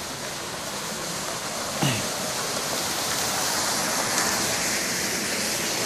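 Small waterfall splashing over rocks: a steady rush of falling water that grows gradually louder.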